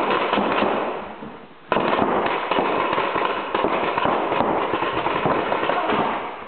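Reball markers firing in rapid, dense volleys of sharp pops. One volley breaks in suddenly about a second and a half in and keeps going.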